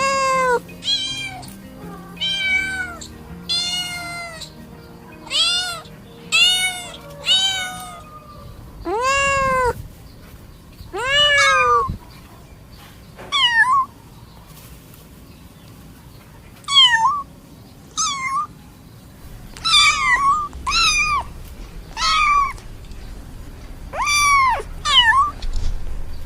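Domestic cats meowing, about twenty separate meows one after another, each rising then falling in pitch, over soft background music.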